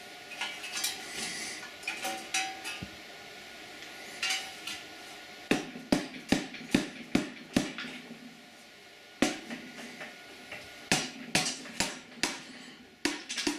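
A hammer striking metal parts of a Briggs & Stratton engine being taken apart, driving out the balancer. Sharp blows come in a quick run of about two or three a second after some metallic clatter, then a few more later.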